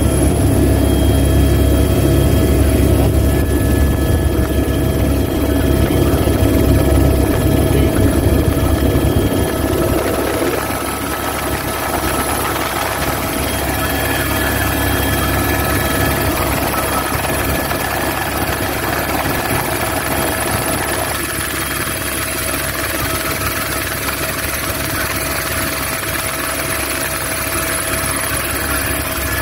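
Helicopter turbine and rotor noise heard from inside the cabin: steady whining tones over a deep rumble, the rumble easing about ten seconds in.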